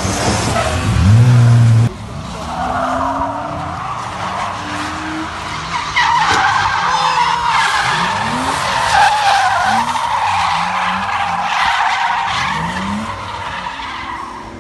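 Drift cars sliding on a track: tyres squealing through long slides while the engines rev in repeated rising sweeps. The engine note is loudest in the first two seconds.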